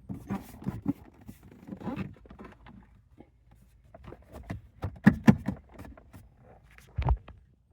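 Plastic dashboard trim of a Honda Civic being handled and fitted back in place: a run of irregular clicks and knocks, with two sharp snaps about five seconds in and a dull thump near the end.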